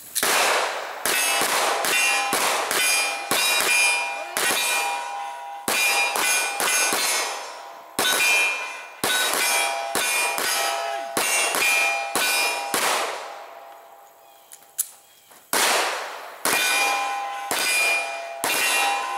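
Rapid pistol fire with steel targets ringing after the hits, about three shots a second. The shots come in two strings separated by a pause of about two seconds after the middle.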